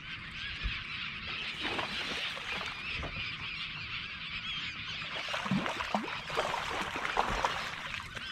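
A large flock of birds calling continuously, with many cries overlapping into a constant chatter.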